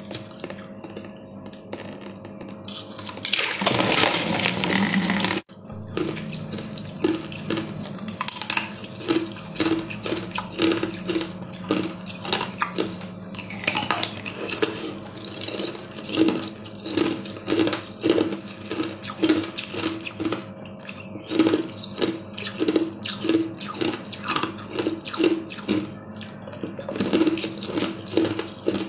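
A brief splashing pour of liquid from a plastic bottle that cuts off sharply, followed by rhythmic chewing, about two chews a second.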